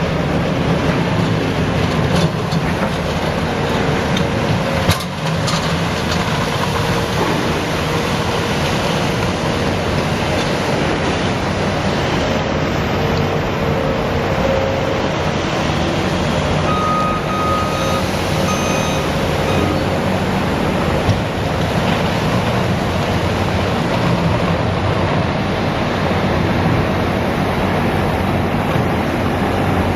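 Heavy demolition equipment's engine running steadily, with one sharp knock about five seconds in.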